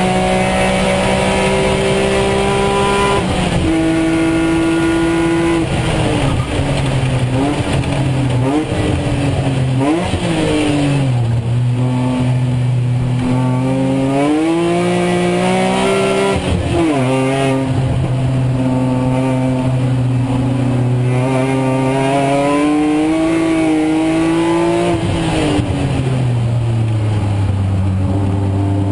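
BMW Z4 M Coupe race car's straight-six engine at full racing load, heard from inside the cockpit. Its note rises and falls through gear changes and braking, with sharp breaks in pitch about four times, over steady road and wind noise.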